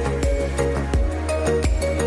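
Background music with a steady beat, a held bass and a melody of sustained notes.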